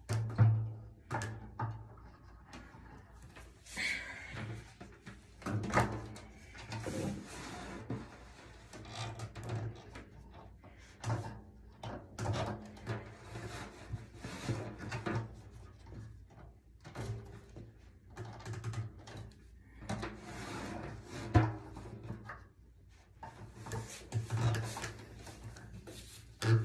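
Drum set hardware and parts being handled and fitted during assembly: irregular knocks, clicks and scrapes, some louder than others, with no steady rhythm.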